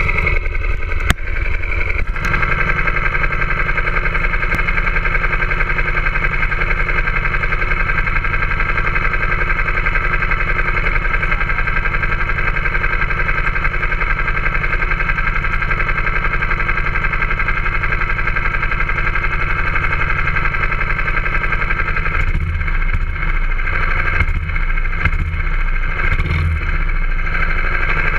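Go-kart engine idling steadily right next to the microphone, with a single knock about a second in and a few brief surges in the low rumble near the end.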